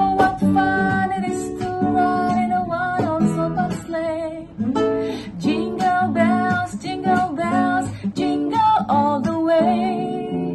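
A woman singing a melody over strummed acoustic guitar.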